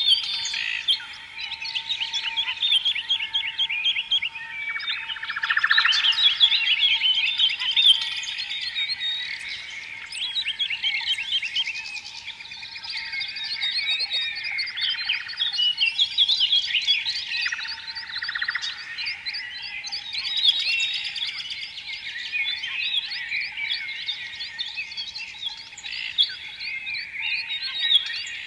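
A chorus of small birds chirping rapidly and continuously, over a faint steady tone.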